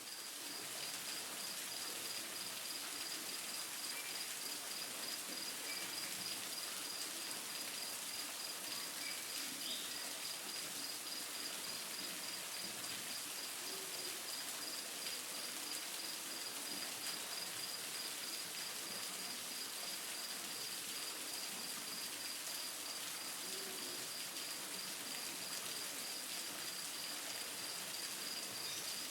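Steady rushing of waterfall water, with an insect chirping in a fast, even, high-pitched pulse over it and a few faint bird chirps.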